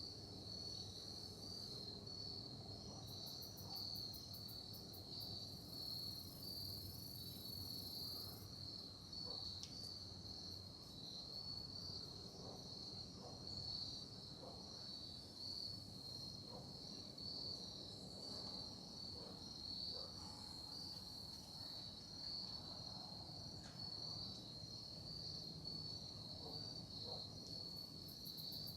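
A chorus of crickets chirping in a steady, high-pitched, finely pulsing trill.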